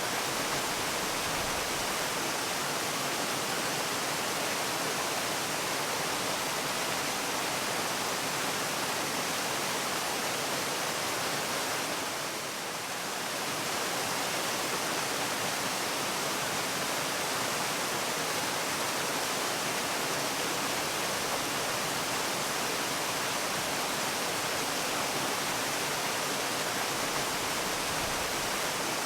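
Waterfall: a steady, even rush of falling water, dipping slightly for a moment about twelve seconds in.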